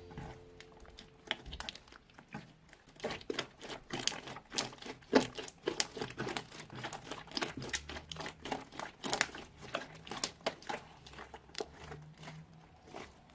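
Slime being squeezed and mixed by hand, giving irregular crackling and sticky popping clicks that begin about a second in.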